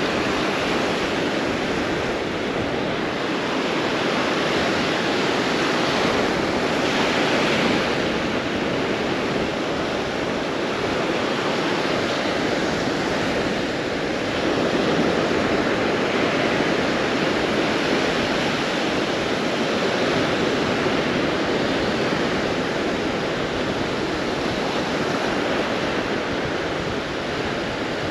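Steady rush of surf breaking on the beach, mixed with wind buffeting the microphone.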